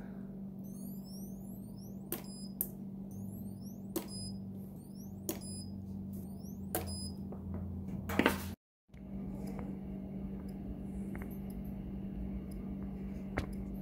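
Spot welder pulses firing through handheld copper electrodes into nickel strip on 26650 LiFePO4 cells, heard as about six sharp, separate snaps over the first eight seconds or so. A steady low hum runs underneath.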